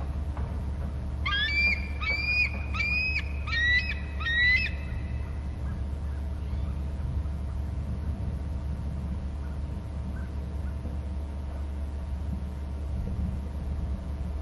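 Bald eagle calling: a run of five high, piping screech notes, evenly spaced about two-thirds of a second apart, then it stops. A steady low hum runs underneath.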